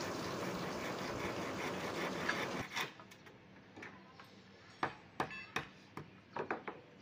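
Hand saw rasping through a wooden shuttering plank for the first two and a half seconds or so, stopping abruptly. A few sharp knocks on wood follow, from about five seconds in.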